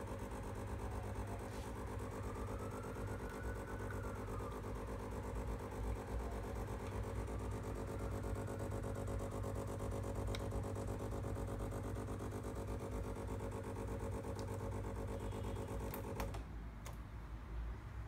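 Philips HD8844 super-automatic espresso machine's pump running with a steady buzzing hum while it brews coffee into the cup. It cuts off with a couple of clicks about sixteen seconds in.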